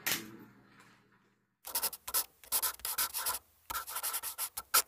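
A run of irregular scratchy, rubbing noises in short bursts, starting a little under two seconds in, after a brief fading sound and a moment of silence.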